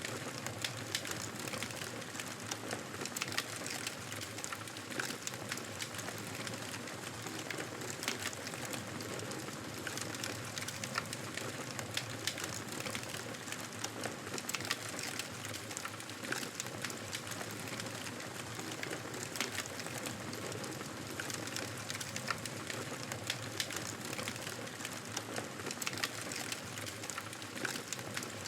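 Wood fire crackling steadily in a fireplace, many small sharp pops and snaps over a low hiss of burning.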